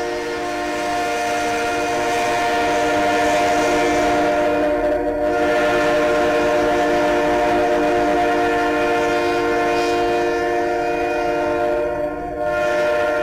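Train horn held in a steady chord of several tones over the rumble of a passing train.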